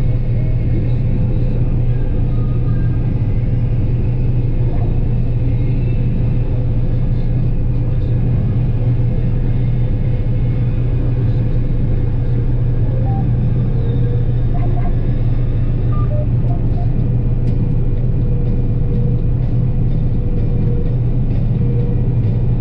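John Deere 9770 combine running steadily while harvesting soybeans: a constant low rumble of engine and threshing machinery with a steady hum underneath.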